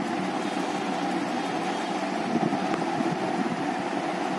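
Steady mechanical hum, like a room fan or air conditioner running, with a few faint scrapes about halfway through as a knife blade works at a paper seal sticker.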